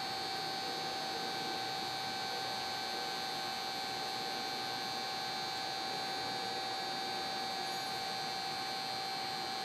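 Steady electrical hum with several fixed, unchanging tones, one low and some high and whining.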